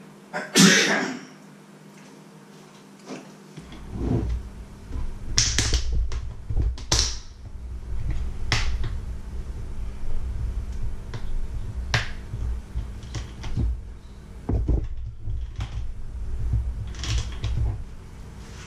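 A loud clatter near the start, then a white plastic bucket's snap-on lid being worked loose and pulled off: a run of sharp plastic clicks and snaps over a low rumble of the bucket being handled against the wooden worktop.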